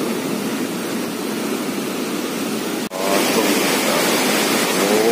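Steady rush of turbulent floodwater pouring through a dam's gates into the canal below, breaking off for an instant about three seconds in.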